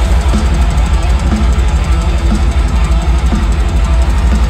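Live metal band playing loud: electric guitar, bass and a pounding drum kit in full swing, with no vocals.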